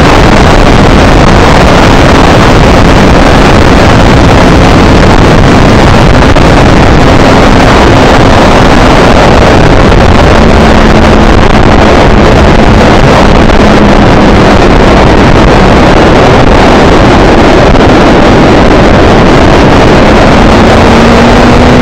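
Motorcycle at track speed recorded by an onboard camera: loud, unvarying wind rush on the microphone covers everything, with the engine's note faintly underneath. The engine pitch sags through the middle and rises again near the end as the throttle changes.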